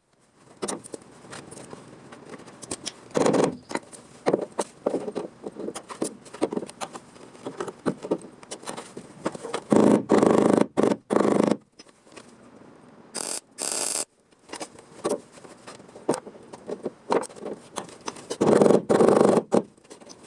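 Hand work on car body sheet metal: irregular scraping and clicking, with three louder rasping stretches, about three seconds in, around the middle and near the end.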